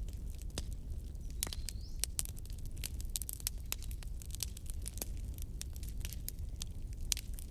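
Wood fire in a fireplace crackling, with many sharp irregular pops over a steady low rumble of the flames. A brief thin whistle sounds about one and a half seconds in.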